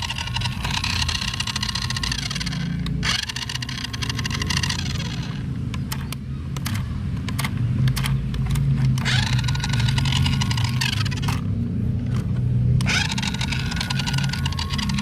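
Small electric motor of a radio-controlled toy whining over a steady low rumble, its pitch rising once early, then cutting in and out in quick bursts and dropping out for about a second before running again.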